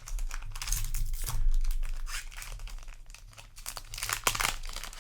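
Foil booster-pack wrapper crinkling and tearing as a trading-card pack is handled and opened, in two spells of crackly rustling, the second about four seconds in.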